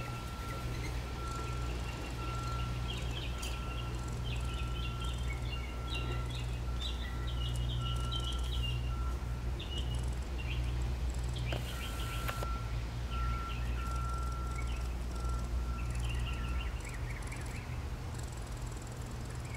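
Eastern gray squirrel making soft, dry rattling chatters in short clusters, like lightly shaken maracas, over a steady low hum and a faint high note repeating about twice a second.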